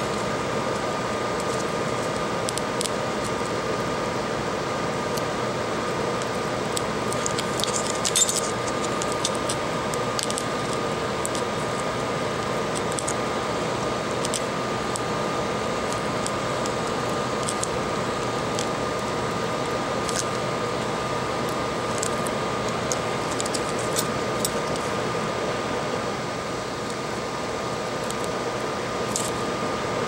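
Steady fan-like machine hum with a constant high whine, broken by scattered light clicks and taps, a small cluster of them about eight seconds in.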